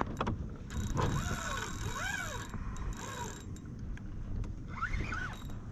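Spinning reel being cranked on a retrieve, its gears whirring in a whine that rises and falls with each turn of the handle.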